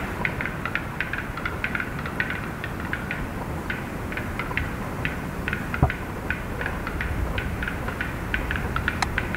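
Black-billed capercaillie display song: a run of dry, irregular clicks, several a second, over a steady low rumble.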